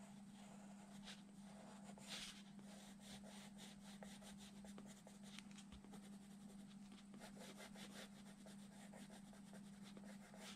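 Faint scratching of a Faber-Castell coloured pencil on drawing paper, in many short strokes, over a steady low hum.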